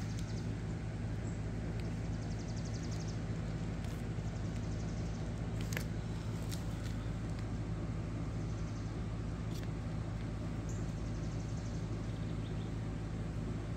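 Steady low hum of an idling engine, with faint rapid high-pitched trills twice and a few faint clicks.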